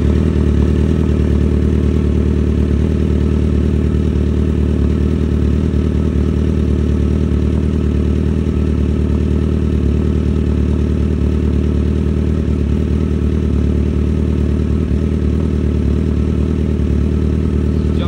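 Suzuki GSX-R sportbike's four-cylinder engine idling steadily, with no revving.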